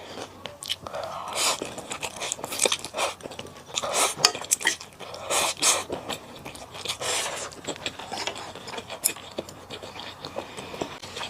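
Close-miked eating: chewing and biting, with utensils clicking against a dish in irregular bursts.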